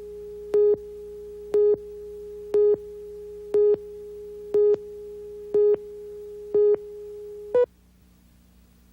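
A steady electronic tone with a louder, buzzier beep on the same pitch about once a second, eight beeps in all, then the tone cuts off abruptly, leaving a faint low hum.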